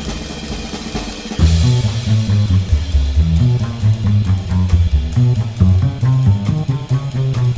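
Background rock music with drums and guitar; a bass line and a full drum beat come in about a second and a half in.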